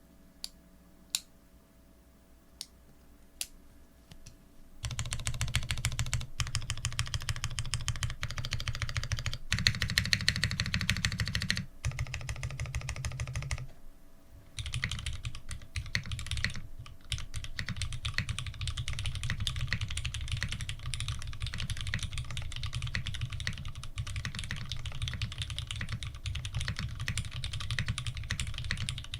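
Mechanical keyboard with Cherry Retooled Black linear switches, 63.5 g slow-curve springs and GMK keycaps, being typed on. A few single key presses come first, then fast continuous typing with a couple of short pauses.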